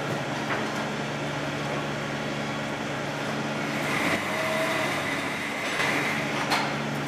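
Steady hum of a fume extractor. About four seconds in, a higher-pitched hum joins it while the resistance-soldering unit's current heats the ferrule.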